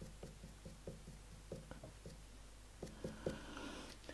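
Faint, quick strokes of a felt-tip permanent marker dabbed across the steel bevel of a plane iron, about five ticks a second, inking the edge so the freshly honed micro-bevel will show. The strokes stop a little after three seconds in, followed by a soft scuffle of handling.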